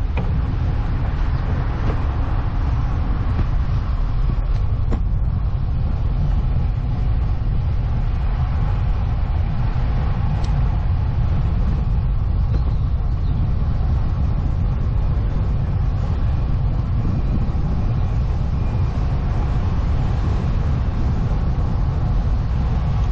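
Wind buffeting the microphone of an action camera on a moving road bike: a steady low rumble with a hiss above it.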